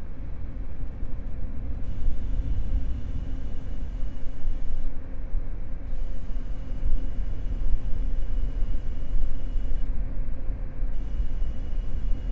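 Desktop PC with an Intel Core i5-750 under load: a steady low rumble and hum with a high, thin whine. The whine cuts out for about a second three times, roughly every five seconds. The owner traces the noise to the CPU under load and cannot identify its cause.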